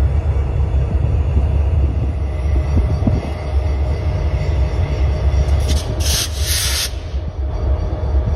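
Freight train with diesel locomotives moving slowly past, with a steady low rumble and a brief burst of high-pitched noise lasting about a second, about six seconds in.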